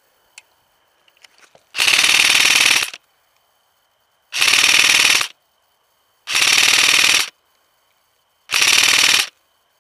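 Airsoft rifle firing on full auto: four bursts of rapid BB shots, each about a second long, with pauses of a second or so between them.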